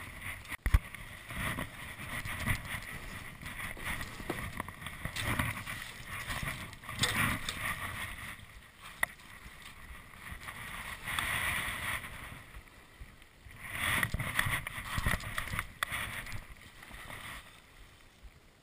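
Water splashing and sloshing around a drift boat on a river, in uneven swells, with wind on the microphone and a sharp knock about a second in.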